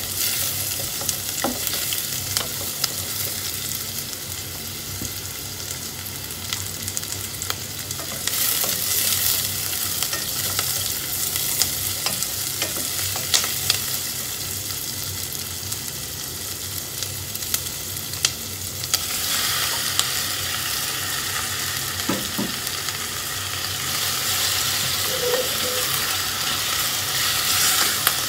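Diced onions sizzling in a stainless steel pot while a wooden spatula stirs them, with scattered clicks and scrapes of the spatula against the pot. The sizzle grows louder and brighter about two-thirds of the way in.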